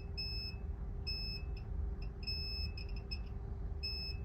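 Multimeter continuity beeper sounding in short, irregular spells of a high-pitched beep as the probes test a logic-board line: the beep signals a short to ground. A faint steady hum runs underneath.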